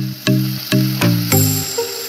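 Background music of short, quickly fading pitched notes, a little over two a second.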